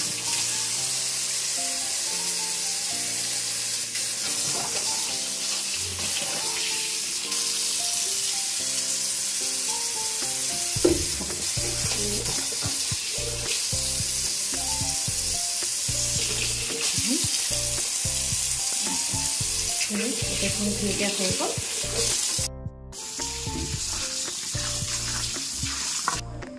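Tap water running steadily over fruit being rinsed in a plastic basin, under background music with a slow stepping melody; there is a single knock about eleven seconds in, and the water stops near the end, leaving the music.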